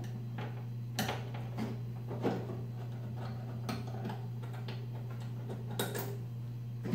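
Hand screwdriver backing screws out of a CRT monitor's sheet-metal rear shell: a handful of small, irregular clicks and scrapes as the tip turns the screws, over a steady low hum.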